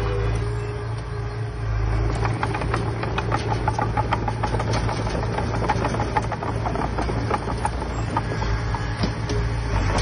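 Heavy diesel earthmoving machine running steadily, with a rapid, irregular clatter of metal clicks and knocks starting about two seconds in.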